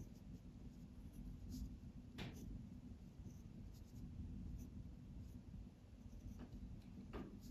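Faint scratching of a Sarasa gel pen's tip on paper as a kanji is written stroke by stroke, with a few soft ticks where strokes start or end.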